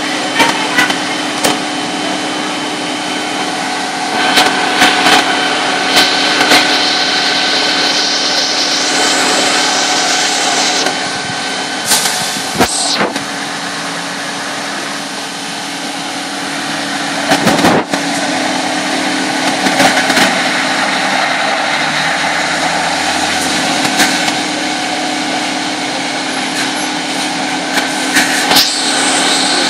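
Fire engines running steadily at the scene, a constant engine hum with a fixed pitch. Scattered knocks and rubs of handling noise come from a hand over the phone's microphone.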